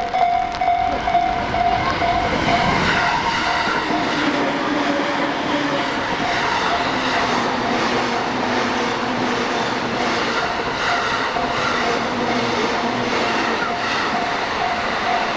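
Japanese railway level-crossing warning bell ringing with a steady, repeating ding while a train runs past over the crossing, its passing rumble building from about two seconds in.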